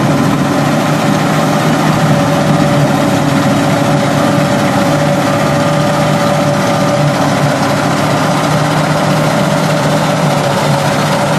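Combine harvester running steadily in a wheat field, a constant engine and machinery hum with a faint steady whine.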